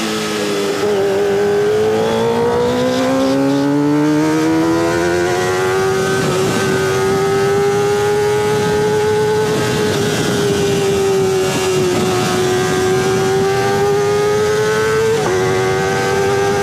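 Kawasaki Ninja ZX-25R inline-four engine running at high revs through a DX Generation Sphere aftermarket exhaust while ridden. The revs dip, climb over several seconds, then hold at a high, fairly steady pitch, with a brief blip about fifteen seconds in.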